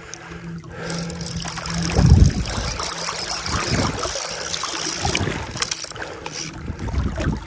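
Fly reel clicking as line is wound in while a large trout is played toward the net. A dull bump about two seconds in.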